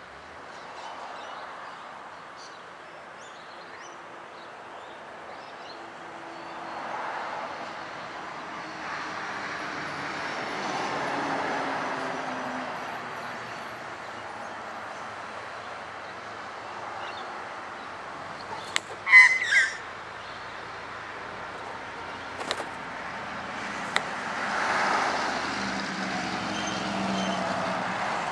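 A magpie swooping and clicking its bill: a quick cluster of sharp clicks about two-thirds of the way through, the loudest sound, with a few single clicks after it. Under it runs a steady rushing background that swells and fades several times.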